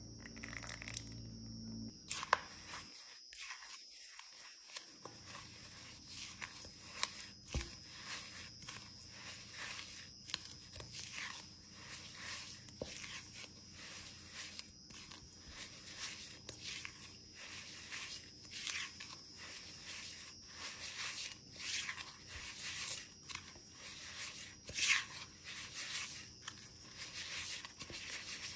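Oreo cookies being crushed by hand in a glass bowl: an irregular run of dry crunching and crackling.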